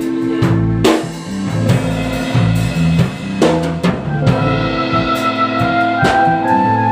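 Instrumental band music without singing: a drum kit with bass drum and snare over a walking bass line and held chords, with a few heavier drum hits about a second in, midway and near the end.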